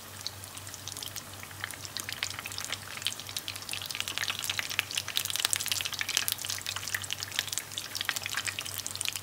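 Fritter balls deep-frying in hot oil: a steady sizzle full of crackles and pops, growing louder from about three seconds in.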